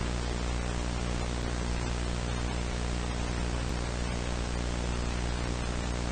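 Steady static hiss with a low electrical hum beneath it.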